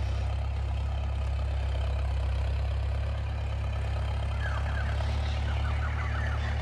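Farmtrac tractor's diesel engine running steadily as it hauls a trailer loaded with cut grass, a deep even drone. A run of short high chirps joins it in the second half.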